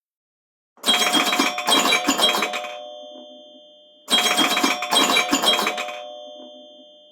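A classic iPhone ringtone of a ringing bell, played twice: two clattering rings of about two seconds each, each trailing off as it dies away.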